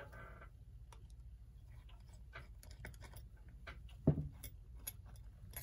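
Faint small clicks and taps of a screwdriver and metal parts being handled while screws are undone on the back plate of a Telechron electric clock movement, with one louder thump about four seconds in.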